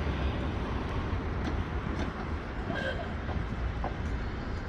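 Volk's Electric Railway car running along its narrow gauge track: a steady low rumble with a few light clicks, and a brief high squeak about three seconds in.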